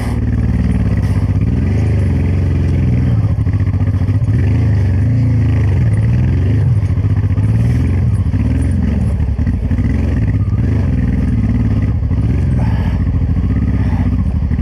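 Honda Transalp 600's V-twin engine running under load on a rocky trail climb, its revs rising and falling with the throttle.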